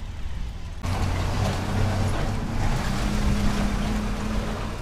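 Street traffic: a motor vehicle's engine running close by with a steady low hum, over road noise that comes in abruptly about a second in.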